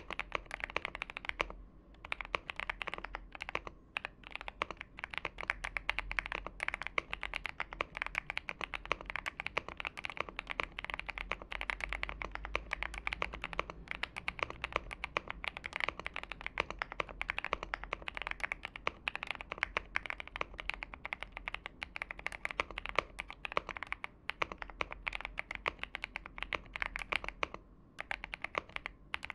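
Continuous rapid typing on a Xinmeng A66 mechanical keyboard with lubed and filmed Boba U4T tactile switches on a polycarbonate plate. There are a few short pauses.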